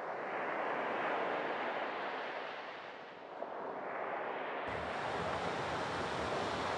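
Sea surf washing in and drawing back in slow swells. A low rumble joins about two-thirds of the way through.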